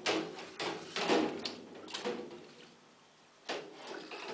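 Inflation brush scrubbing inside a milking unit's teat cups: a run of quick brushing strokes that fades to a brief pause about three seconds in, then starts again.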